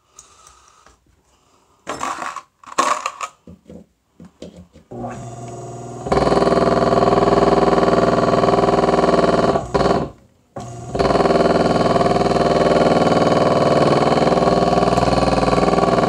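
A few short clicks, then a furnace blower motor starts on a higher speed about five seconds in and runs with a loud, steady hum, cutting out for about half a second near ten seconds and starting again. It makes a knocking noise, which the owner puts down to the bearings.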